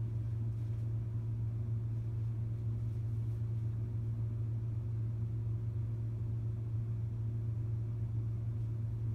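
A steady low hum at an even level, with no distinct sounds above it.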